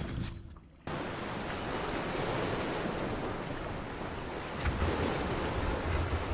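A steady rushing noise that starts abruptly about a second in, with some low rumbling and a brief sharp tick about halfway through.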